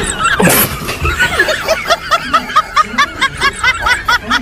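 Background music with a high-pitched laughing sound effect in quick repeated notes, about five a second, after a short sweep about half a second in.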